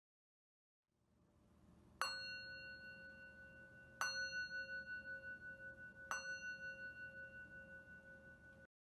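Metal singing bowl struck three times with a mallet, about two seconds apart. Each strike rings on with a pulsing, wavering tone that carries into the next, until the sound cuts off abruptly near the end.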